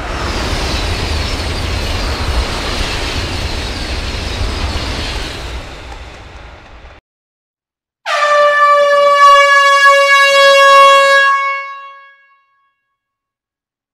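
A loud rushing noise with a deep rumble that cuts off suddenly, then, after a second's gap, one long air-horn blast on a single steady pitch, about four seconds, fading at the end.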